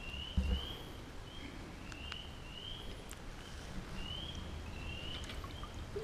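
Spring peepers calling from a woodland pool: short rising peeps, several overlapping, about two a second. A low thump comes about half a second in.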